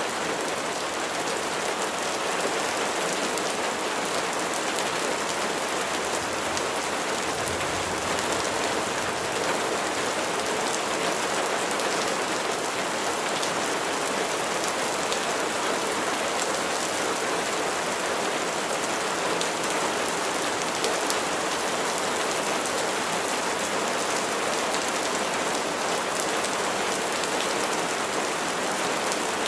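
Steady rain falling on a surface, an even hiss dotted with individual drop ticks.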